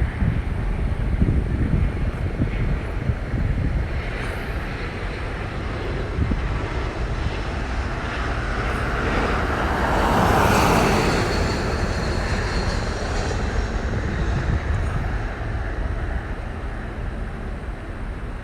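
Steady roadside traffic rumble, with one vehicle passing close by about ten seconds in, swelling and then fading away.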